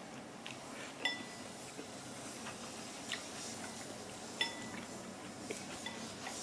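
Cutlery clinking against a ramyeon bowl while eating: two sharper, briefly ringing clinks, about a second in and near four and a half seconds in, with softer taps between.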